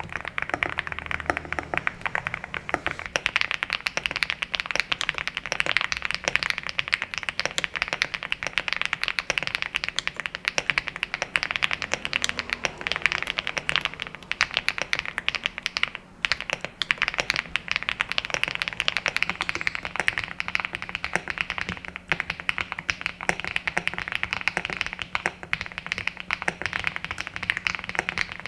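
Continuous fast typing on an EVO80 custom mechanical keyboard fitted with HMX Azure switches on an FR4 plate: a dense, steady stream of keystroke clacks, with one short pause about halfway through.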